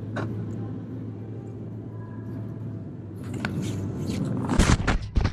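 Muffled low rumble and rustling of an action camera with its lens covered, building about three seconds in into scraping and then loud thumps near the end as the snowboarder falls on the snow.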